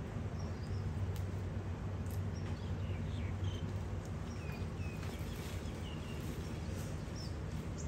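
Scattered short, high bird chirps over a steady low hum, with a few faint clicks.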